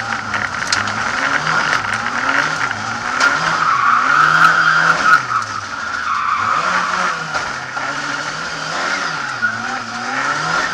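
Lada 2101 rally car heard from inside the cabin: the engine revs rise and fall repeatedly through gear changes while the tyres squeal in a slide, the squeal loudest about four to five seconds in.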